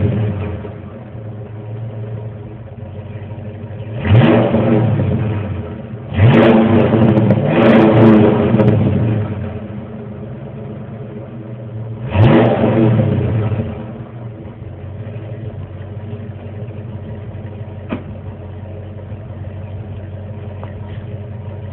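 1990 Ford Mustang LX 5.0's V8 engine being revved in four or five quick blips over the first dozen seconds, each one rising sharply and dropping back to a steady idle, which it then holds.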